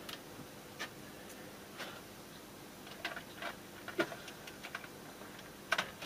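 Light, irregular clicks and ticks of small metal screws being picked through and handled, with a sharper pair of clicks near the end.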